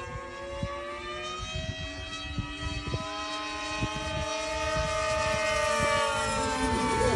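Radio-controlled model airplanes flying overhead: a steady motor-and-propeller drone of several tones, each slowly rising and falling in pitch, getting louder toward the end as a plane comes closer. Wind buffets the microphone underneath.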